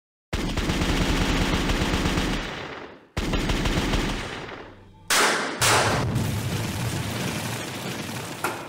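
Machine-gun fire sound effects for a title sequence: a long burst of rapid shots that fades out, a second burst, then about five seconds in two loud blasts half a second apart, trailing off into a fading rumble.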